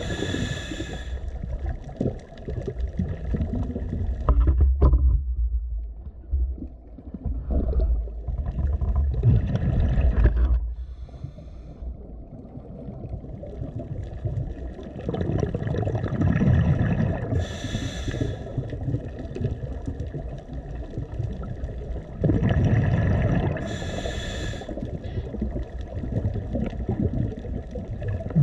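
Scuba diver breathing through a regulator underwater: several hissing inhalations, each followed by a longer low rumble of exhaled bubbles, in a slow repeating cycle.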